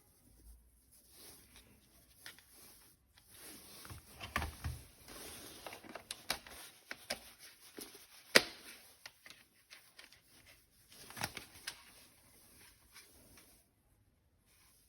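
Plastic toys and packaging being handled: irregular rustling and small clicks and knocks, with one sharp click about eight seconds in.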